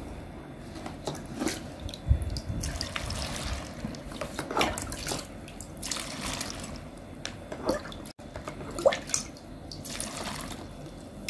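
Pickling brine scooped from a bowl with a glass and poured into a jar packed with vegetables, splashing and trickling irregularly.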